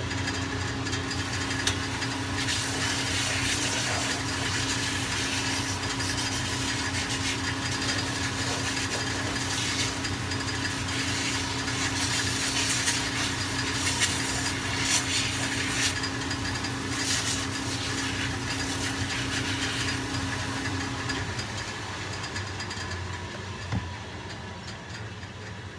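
A motor-driven sanding machine running with a steady hum while leather is pressed against it, giving an uneven grinding rasp as the sole leather is shaped. About 21 seconds in the motor's tone stops and the sound dies down.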